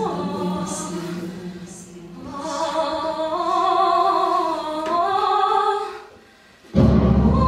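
Recorded vocal music, voices singing in long held, gently gliding notes, likely a choir. It fades out about six seconds in, and louder music with a heavy low part starts abruptly near the end.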